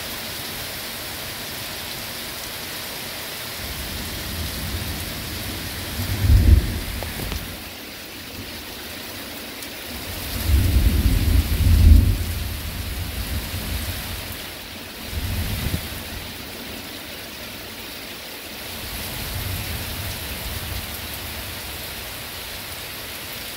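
Heavy rain pouring steadily in a thunderstorm. Several low rumbles swell and fade over it, about 6, 11 and 15 seconds in; the one around 11 seconds is the loudest.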